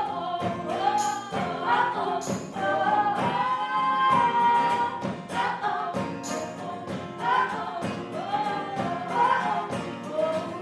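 Live band music: voices sing long, held, wordless harmonies over instrumental accompaniment, with a few sharp percussive strokes in the first seconds and again about six seconds in.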